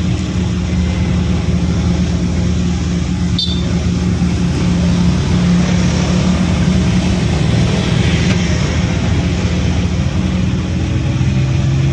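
Engine of the road vehicle carrying the recorder, running steadily as it drives along, a low hum that drops slightly in pitch near the end. A single sharp click about three and a half seconds in.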